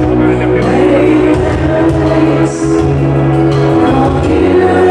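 Live soul music from an electronic keyboard with a steady bass line, and a woman singing into a hand-held microphone over it.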